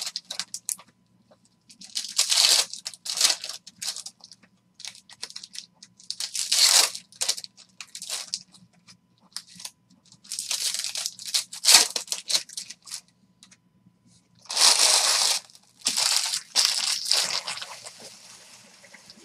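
Foil trading-card pack wrappers being torn open and crinkled by hand, in several crackling bursts of a second or two each with short pauses between.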